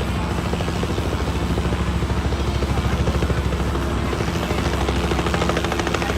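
Helicopter coming in to land close by, its rotor blades beating in a fast, steady chop; very loud. A steady whine joins in about four seconds in.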